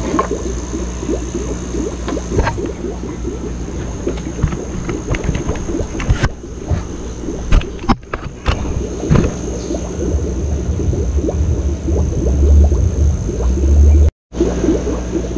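Water bubbling and gurgling in the fish tanks, a dense crackle over a steady low hum, with a louder low rumble for a few seconds near the end. The sound cuts out for a moment just before the end.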